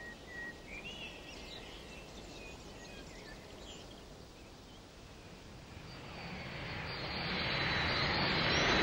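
Faint bird chirps over quiet outdoor background, then from about six seconds in the noise of a jet aircraft's engines swells up loudly, with a high whine over the roar.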